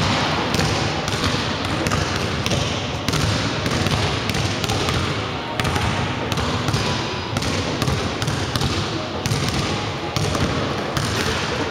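A basketball being dribbled on a hardwood gym floor: sharp bounces about twice a second over a steady background noise.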